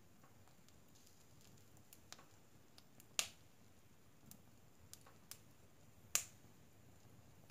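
Wood fire burning in a stove's firebox, crackling with a few scattered faint ticks and two sharp, loud pops about three seconds apart.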